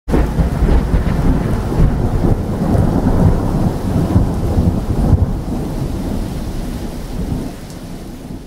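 Thunder and heavy rain sound effect: a loud, deep rumbling that starts suddenly, rolls on and fades out near the end.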